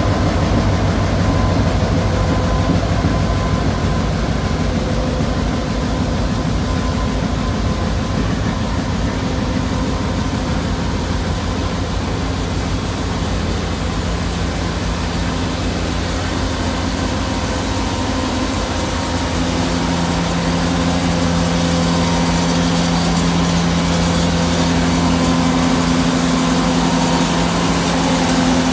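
Slow-moving diesel work train passing at close range, its engines giving a steady drone. The lower engine note fades early as the GP38-2 locomotives move away. A second, higher engine hum grows louder from about two-thirds of the way in as the equipment cars come past.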